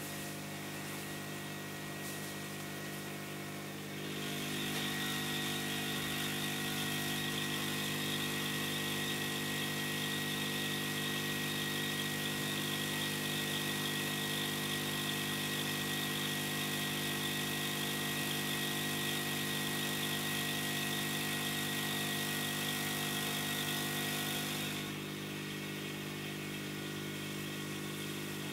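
Hot air rework station's blower running steadily, a hum of several steady tones with an airy hiss. About four seconds in the hiss and level rise, and they drop back a few seconds before the end.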